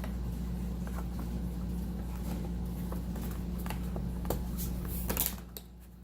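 Steady low electrical hum with a few light clicks and taps from small wooden module pieces being handled. The hum drops away briefly near the end.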